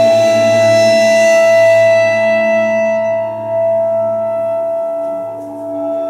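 Cymbal bowed along its edge, giving long sustained ringing tones with many overtones. The high shimmer fades about two to three seconds in, while a strong middle tone keeps sounding.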